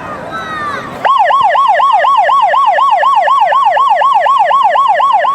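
Siren sounding a fast yelp, its pitch sweeping up and down about four times a second; it starts suddenly about a second in, is loud, and cuts off at the end.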